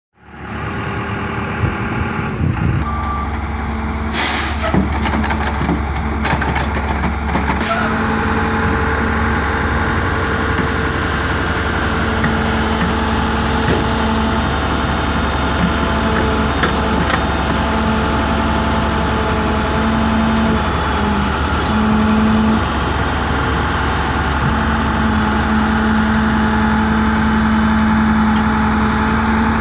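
Heavy work-vehicle engine running steadily at a water-main repair site. A noisy stretch of hissing and clatter comes about four seconds in and lasts some four seconds.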